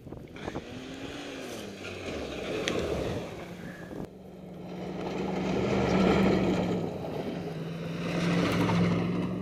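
Ford F-150 pickup driving on a dirt track, its engine running steadily and growing louder as the truck comes close. It is loudest about six seconds in and again near the end, with an abrupt break about four seconds in.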